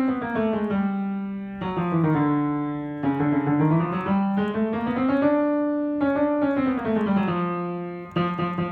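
Kawai upright piano played: flowing phrases that rise and fall over held bass notes, with fresh chords struck about every second. Its tone is quite a bit harder than the mellow-felted Ritmüller RS122.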